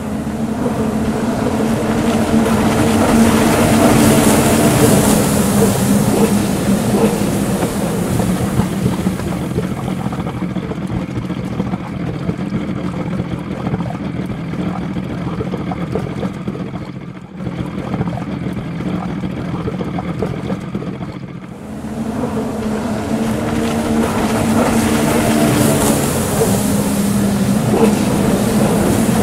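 A pack of jet skis running together at race speed, a steady engine sound. From about ten seconds in it turns muffled and a little quieter, coming back full about twenty-two seconds in.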